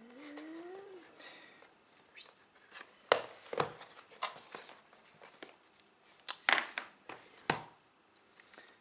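Smartphone retail box and its cardboard inserts being handled, with a few sharp taps and knocks, the loudest about three seconds in and twice more near the end.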